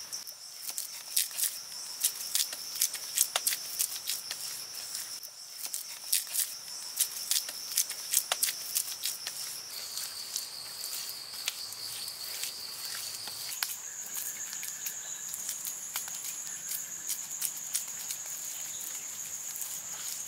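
Bare hands slapping, patting and pressing wet mud clay, in irregular quick smacks. A steady high-pitched insect drone runs underneath and changes pitch twice.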